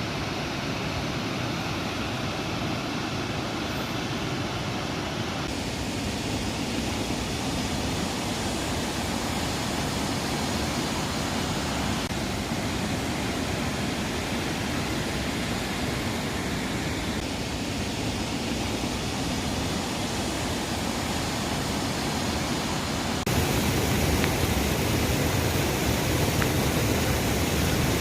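Fast-flowing river rushing, a steady noise with no pattern in it, stepping up louder with an abrupt change about three quarters of the way through.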